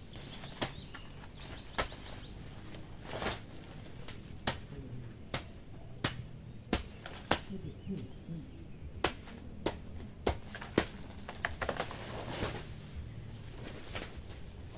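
Hand clearing at the base of banana plants: about a dozen sharp, irregular chops or snaps with bursts of rustling leaves and stalks. Birds chirp briefly at the start.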